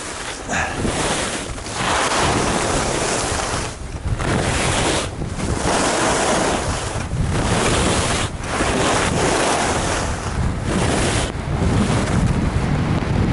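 Wind rushing over the camera microphone of a skier going downhill, mixed with skis running on groomed snow. The noise drops away briefly every second or two.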